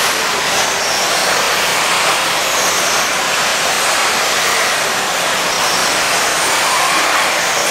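Several electric RC buggies racing on a dirt track: a steady, dense high-pitched whine of their motors and drivetrains mixed with the hiss of tyres on dirt.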